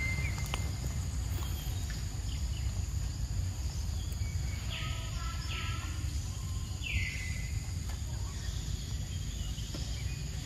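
Outdoor ambience with a steady low rumble. A bird calls a few times, each call sliding down in pitch and levelling off.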